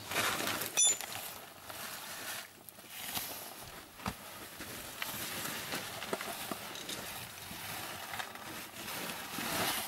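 Faint rustling and scraping from climbers and a handheld camera moving down a narrow ice passage, with a click about a second in and a soft knock near the middle.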